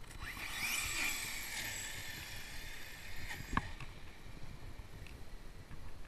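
Electric RC monster truck on 6S with a 980 kV brushless motor accelerating on pavement: a high, layered motor whine rises in pitch over the first second with a hiss, holds, then fades as it slows. A single sharp knock comes about a second later.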